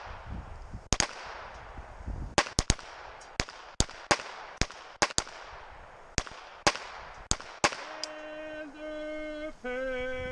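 Handgun shots in a field-shooting string: about fourteen sharp reports at uneven spacing, some nearly overlapping as several shooters fire at once, each trailing off in an echo. Near the end the shooting stops and three long held tones sound.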